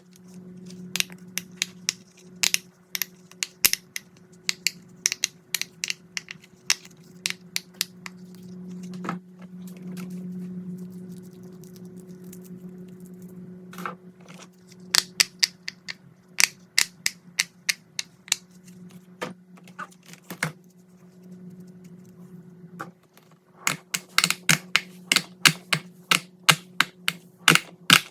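Fidget toys pressed and clicked by hand: runs of sharp, quick clicks and pops, thickest near the end, over a steady low hum.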